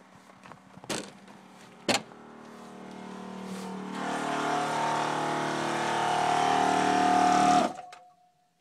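Air-bag suspension system of a fish house working: two sharp clicks, then a steady mechanical hum mixed with hiss that grows louder over about five seconds and cuts off suddenly near the end, leaving a brief fading tone.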